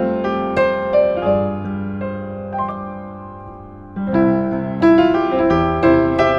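A 1960s upright piano played solo, a slow passage of held chords and single notes. It thins out and dies away, then comes back louder with a new chord about four seconds in.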